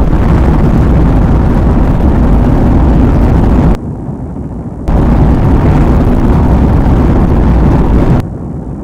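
Loud, steady rumbling noise on a police dash-cam microphone. Twice it drops abruptly to a quieter hiss for about a second, near the middle and near the end.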